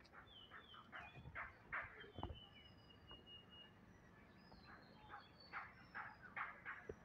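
A white baby rabbit chewing grass blades, a faint run of quick crunching bites about three a second. Thin bird chirps sound in the background.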